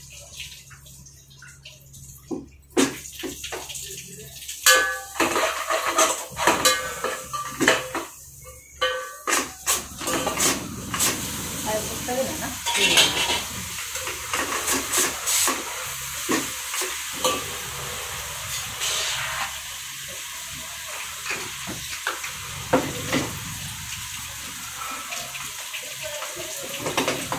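A metal spoon clatters and scrapes against an aluminium cooking pot as pieces of meat are stirred in it, with a steady hiss of frying.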